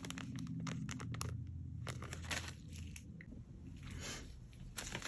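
Clear plastic charm packets crinkling and rustling as gloved hands handle them and set them on a pile, in scattered crackles and light clicks that thin out midway and pick up again near the end.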